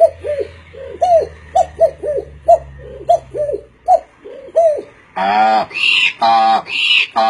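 A man imitating pigeon cooing with his voice: a steady run of short coos, each rising and falling, about two a second. About five seconds in, the coos give way to longer, louder voiced calls.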